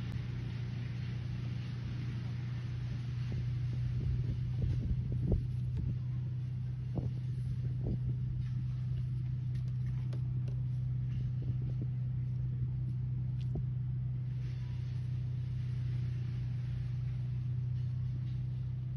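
A steady low hum and rumble like a running motor, with a few light knocks between about five and eight seconds in.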